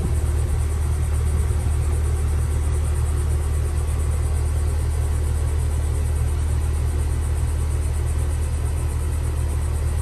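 2021 two-ton Maratherm heat pump outdoor unit running in cooling mode: a steady low hum from its compressor and condenser fan.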